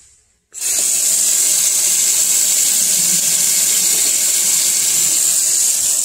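Kitchen faucet running steadily into a stainless steel sink, turned on about half a second in and shut off near the end.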